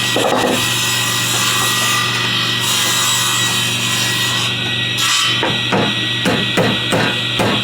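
Wood being sawn by hand: a steady rasping sound, then a quick run of even strokes in the second half, about four a second.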